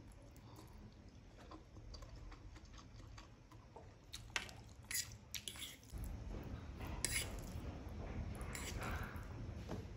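Close-miked chewing of cheese masala Maggi instant noodles, with a few sharp clicks from about four seconds in.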